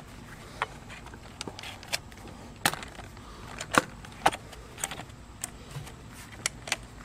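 Irregular sharp clicks and clanks of a kayak cart's frame parts and bunker bars being handled and fitted together, a dozen or so separate knocks spread unevenly, with a few louder ones in the middle.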